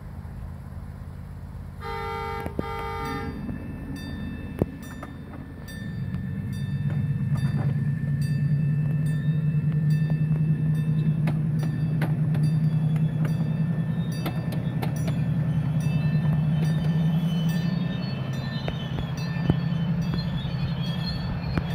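Horn of a one-eighth scale ride-on model diesel locomotive giving two short blasts, the signal for moving off. A few seconds later the locomotive's drive takes up a loud steady low hum as the train gets under way, with light clicks of the wheels over the 7.5-inch-gauge track.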